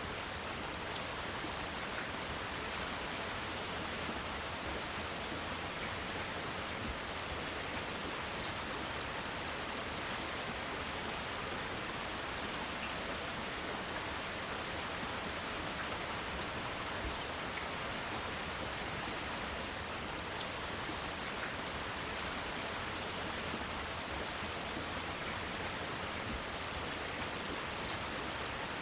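Steady rain falling, an even hiss with scattered drops ticking on leaves and surfaces.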